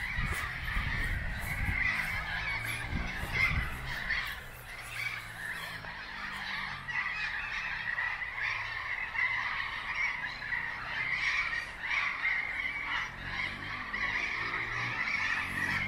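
A flock of birds calling continuously, a dense chatter of overlapping honking calls that runs on without pause.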